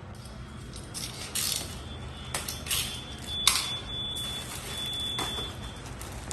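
Rustling and scraping of packaging as contents are lifted out of a box, in several short bursts with a sharp knock about three and a half seconds in. A faint steady high-pitched tone sounds through the middle.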